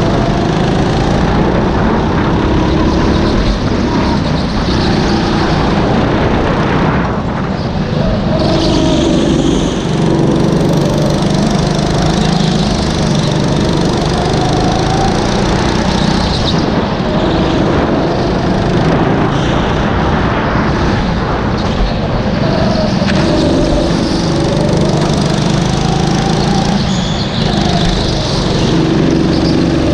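Go-kart's small petrol engine running at speed, heard from on board the kart. Its pitch rises and falls again and again as the throttle is opened and eased through the laps.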